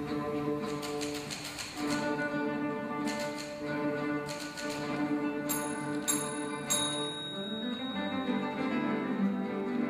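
Guitar orchestra playing a brisk light-classical piece, with bursts of rapid clicking over the plucked notes and three short, bright bell-like dings about half a second apart around the middle.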